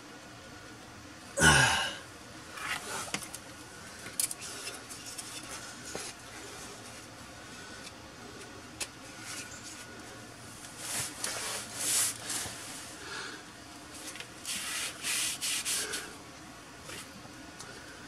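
A hand and rag rubbing and scraping on the underside of a pickup around its oil filter, in short spells that are busiest in the second half. A loud knock about a second and a half in is the loudest sound, and there are a few light clicks.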